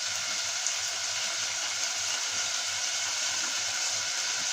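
Onions and tomatoes sizzling steadily in a cooking pot.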